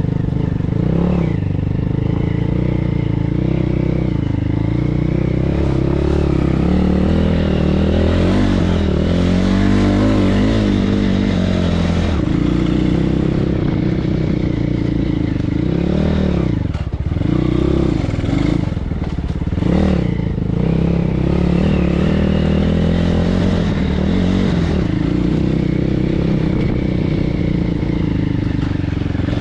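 BSE PH 150 pit bike's 150 cc single-cylinder four-stroke engine running under load on a trail ride, the revs rising and falling with the throttle. Between about 16 and 20 seconds in, the engine note drops away sharply a few times and picks up again.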